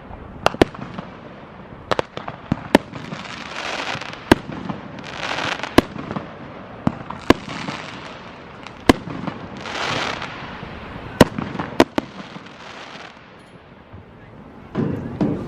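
Fireworks going off all around: about a dozen sharp bangs at irregular intervals, with swells of hissing and crackling between them.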